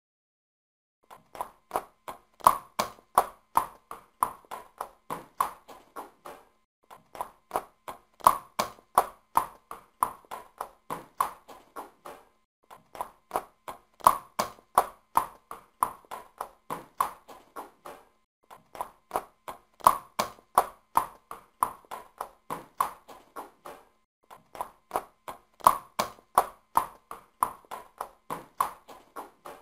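Horse hooves clip-clopping on a hard surface, as a looped sound effect: runs of sharp clicks, several a second, each lasting about five seconds, broken by short silences and repeating about every six seconds.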